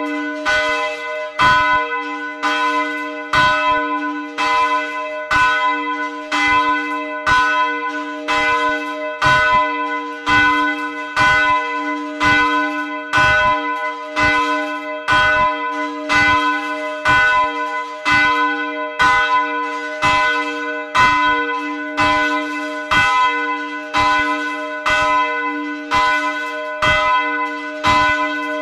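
A swinging church bell, the church's middle bell, ringing in full swing, heard close up in the belfry. Its clapper strikes about once a second, each stroke sounding over the bell's steady, continuing hum.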